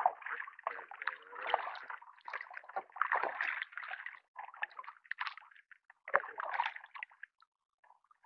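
A double-bladed kayak paddle dipping and pulling through calm lake water, splashing and dripping in uneven bursts about once a second, thinning out near the end.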